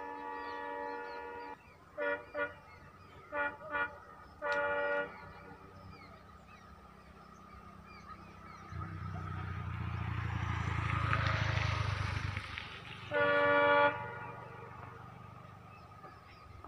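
Train horn sounding in a series of blasts: one long blast, two quick pairs of short toots, a single short one, then another long blast near the end. In between, a rumble swells and fades, with faint birds chirping.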